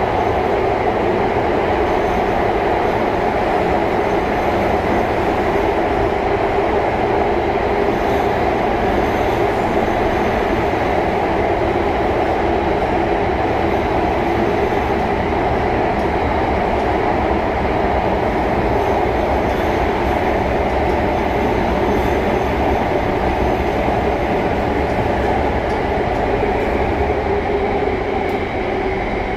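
SMRT C830 Circle Line metro train running between stations, heard from inside the car: a steady rumble of wheels and running gear that eases slightly near the end.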